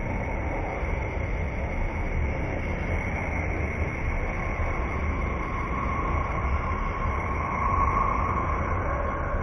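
Voyager 2 plasma-wave recording from Uranus, played back as sound: a steady rushing hiss over a deep rumble, with faint steady tones running through it. A mid-pitched tone swells a little near the end.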